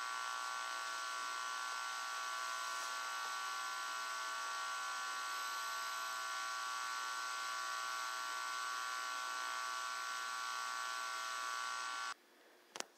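Steady electrical hum made of several held tones over a hiss, unchanging for about twelve seconds, then cutting off abruptly, followed by a single click.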